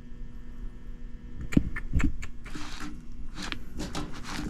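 Air handler blower motor buzzing steadily without starting: it has power but does not spin. Several clicks and rustles of handling at the unit come over the hum.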